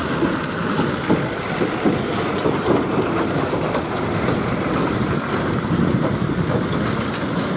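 Heavy tandem-axle lorry driving slowly past at close range: its diesel engine running steadily, with tyre noise on a wet, rough road.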